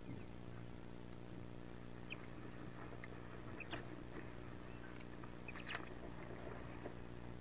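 Wood duck ducklings stirring in a nest box: a few faint, short peeps and scratchy clicks, the clearest about four and six seconds in, over a steady low hum.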